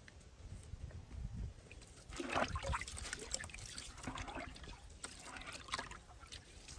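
Water dribbling and splashing in a plastic bucket as a hand squeezes and swishes a clump of red ants through it, in irregular bursts, loudest about two seconds in.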